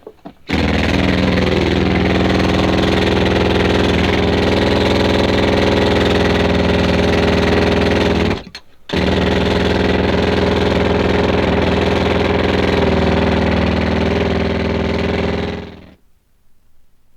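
Pneumatic coal drill hammering steadily at a rapid rate, stopping for about half a second twice, once near the start and once about halfway through, then running down and cutting out well before the end.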